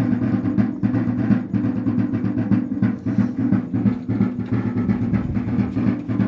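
Wayuu kasha drum beaten in a rapid, steady, driving rhythm for the yonna dance.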